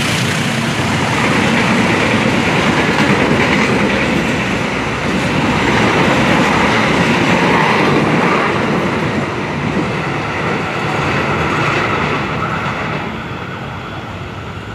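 Coaches of a long-distance passenger train passing close by at speed, a loud steady rush of wheels on rails that fades over the last few seconds as the end of the train goes by.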